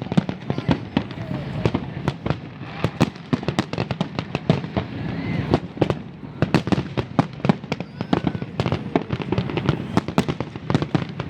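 Fireworks going off in rapid, irregular succession: a dense run of sharp bangs and cracks, several a second, with no let-up.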